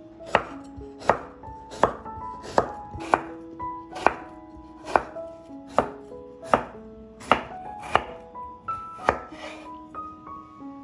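Kitchen knife chopping pear into chunks on a wooden cutting board: about a dozen sharp knocks of the blade hitting the wood, a little over one a second, stopping about nine seconds in.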